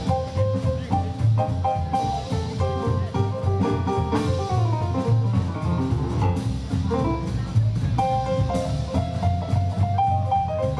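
Live band playing an instrumental passage with no singing: piano playing quick runs of notes over upright double bass and a drum kit.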